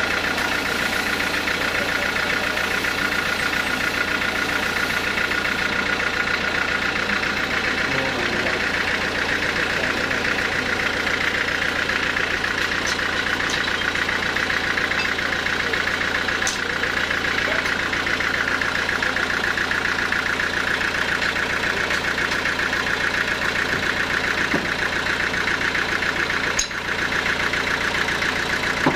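Large log sawmill running steadily as a teak log on its carriage is sawn, a continuous mechanical drone that dips briefly near the end.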